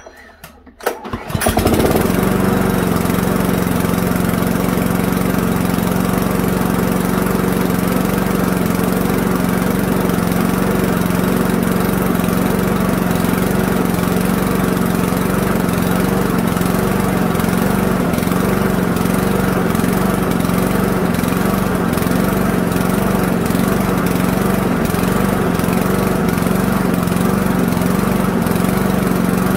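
Toro lawnmower's 159cc Loncin TXP single-cylinder engine, a Honda GCV clone, starts about a second in and then runs steadily at mowing speed, freshly started and warming up.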